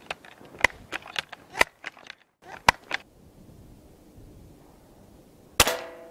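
A run of sharp metallic clicks as the modified pre-1975 Crosman 760 multi-pump air rifle is handled and loaded. Near the end comes a single sharp crack as the rifle fires a BB, followed by a short ring as the BB strikes the target.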